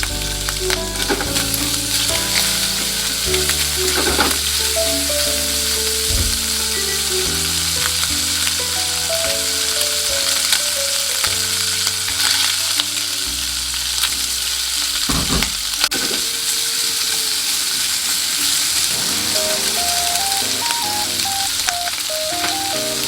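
Food sizzling steadily as it fries in oil in a pan, with a few short scrapes from stirring, over light background music with a stepping melody.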